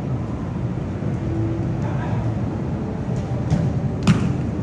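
Steady low rumble of traffic, with faint distant voices of players. A single sharp knock about four seconds in.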